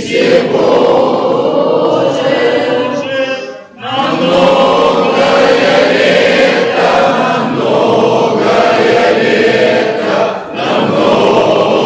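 A group of voices singing an Orthodox church chant together in long, sustained phrases, pausing briefly for breath about three and a half seconds in and again about ten and a half seconds in.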